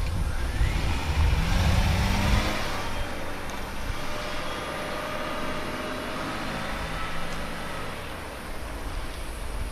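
A car drives past and away, its engine note shifting in pitch as it goes by and then fading steadily as it recedes.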